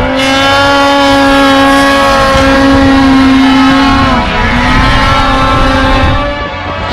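Snowmobile engine running at high revs under throttle, a steady high-pitched drone. About four seconds in the revs drop briefly as the throttle eases off, then climb again.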